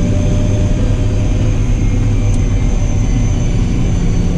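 John Deere 8520 tractor's six-cylinder diesel engine running steadily on the road while pulling a cultivator: a continuous low drone with a faint high whine above it.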